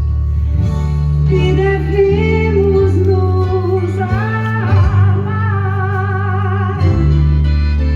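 Music: a song playing, with sustained chords and a wavering melody line and no sung words.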